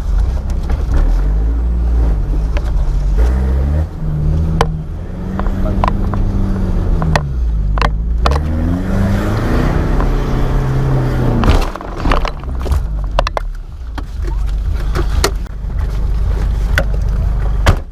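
Off-road 4x4's engine revving up and down under load, with frequent sharp knocks and clunks from the vehicle.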